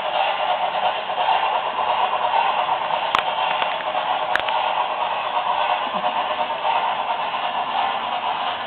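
Märklin BR 10 model steam locomotive running with its onboard sound decoder playing a steady steam hiss through a small loudspeaker. Two sharp clicks come a little over a second apart near the middle.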